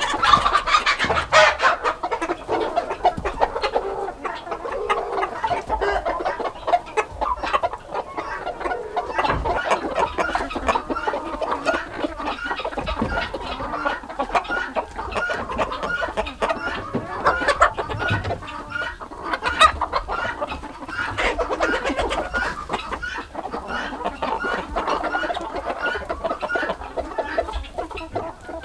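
A flock of chickens clucking continuously, many short overlapping calls, while they feed on a pile of fresh greens.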